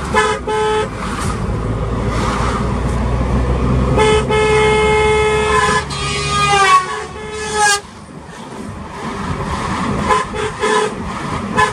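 Vehicle horns honking over a low engine hum: a short toot at the start, then a long blast about four seconds in that slides down in pitch before stopping, and more short toots near the end.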